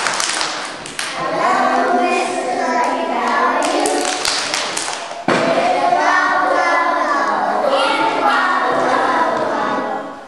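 A group of young children singing a song together in unison, with hand claps near the start and again about four seconds in.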